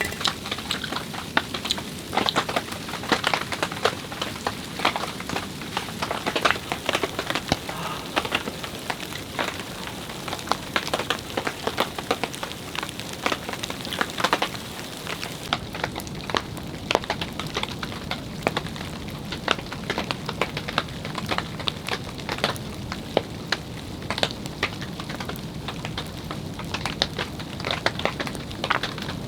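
Steady winter rain falling, many drops ticking irregularly on a surface close by. About halfway through the high hiss drops away while the ticking goes on.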